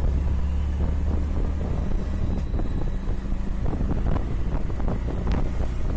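Auto-rickshaw engine running with a steady low drone while under way, with wind noise on the microphone.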